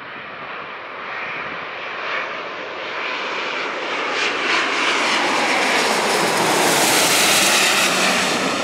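Jet airliner on landing approach passing close by, its engine noise swelling steadily and growing brighter as it nears, peaking near the end and just beginning to fade.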